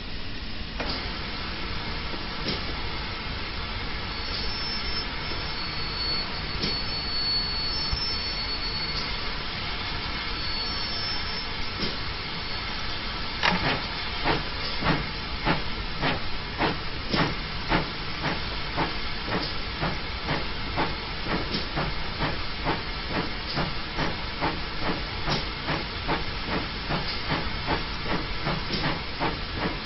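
GWR 0-6-0 pannier tank steam locomotive hissing steam; about halfway through, its exhaust beats start up, a steady chuffing of roughly two beats a second that carries on to the end.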